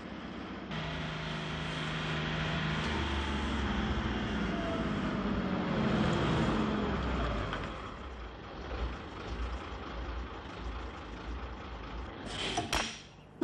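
City bus engine running through traffic, its pitch sliding down midway, with a short loud hiss near the end.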